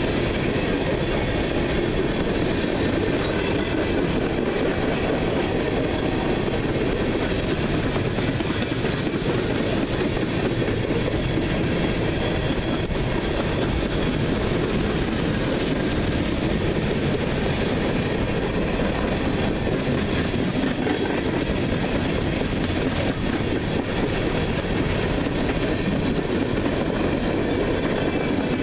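Coal train hopper cars rolling past at speed: a steady, unbroken roar of steel wheels on the rails with a clickety-clack of wheelsets over the track, and faint high-pitched steady tones above it.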